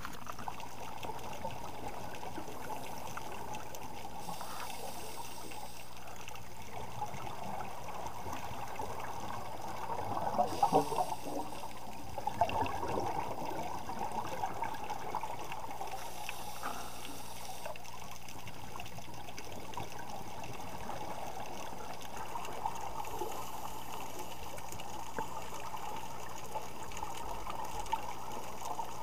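Underwater ambience heard through a camera housing: a steady muffled hiss with the bubbling of scuba divers' exhaled air, louder bursts of bubbling about ten and twelve seconds in.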